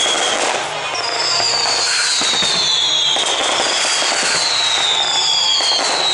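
Fireworks display: dense crackling and popping of bursting shells, over long high whistles that slide downward and repeat about every two seconds.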